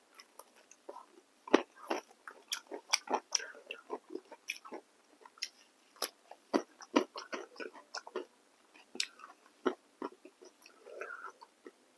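Close-miked mouth sounds of a person biting into and chewing crisp raw cucumber slices: an irregular run of wet crunches and clicks, the loudest about a second and a half in and again around six to seven seconds in.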